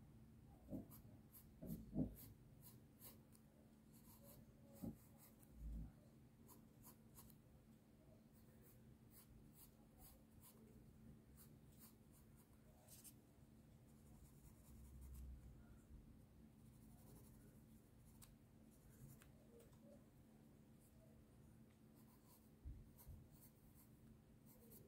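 Graphite pencil scratching lightly on sketchbook paper in many short, faint strokes as fine details are drawn. A few soft low thumps fall in between, the loudest about two seconds in.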